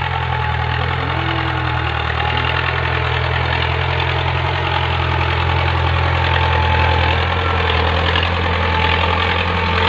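Tractor engine running steadily while ploughing, a low even drone that holds constant.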